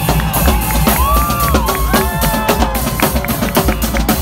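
Marching drums, bass drum and snare drums, played in a fast, dense beat with deep thuds under sharp snare strokes.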